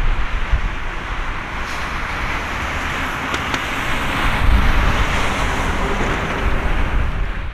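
Boeing 787-8 jet airliner's twin turbofan engines at takeoff climb power: a steady jet roar with a deep rumble underneath.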